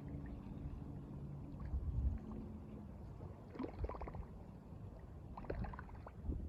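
Wind buffeting the microphone by the river, a low rumble with the water running beneath it. Two short bursts of crackling rattle come about four seconds in and again about a second and a half later.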